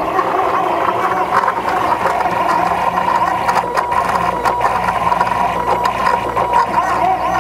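Homebuilt Tantillus Plus 3D printer printing at high speed: its stepper motors sing with a steady whine that wobbles in pitch as the head moves, with a few ticks around the middle.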